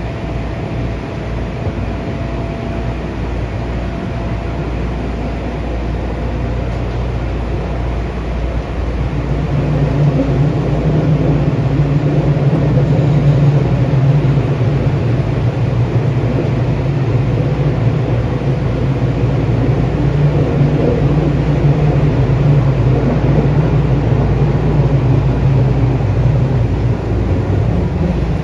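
Running noise inside a Tokyu 8500 series subway car with Hitachi chopper control, heard in the tunnel: a steady rumble of wheels and motors. It grows louder about nine seconds in and stays at that level.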